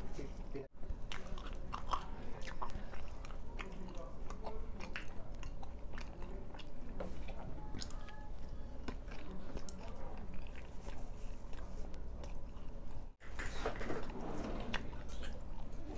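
A man biting and chewing egg-coated paratha close to the microphone: many short mouth clicks and smacks. The sound cuts out briefly twice, about a second in and near the end.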